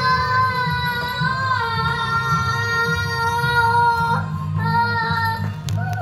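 Young girl singing, holding one long high note for about four seconds before starting a new phrase.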